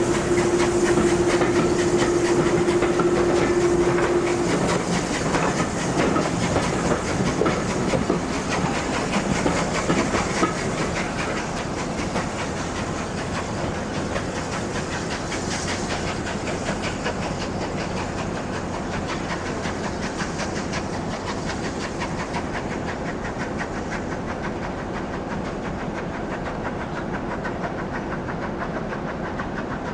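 A steam-hauled passenger train, Bulleid West Country Pacific 34028 'Eddystone' and its coaches, drawing away over pointwork, with steam hissing and the wheels clicking over the rail joints. A steady note sounds for the first few seconds, and the running sound slowly fades as the train pulls away.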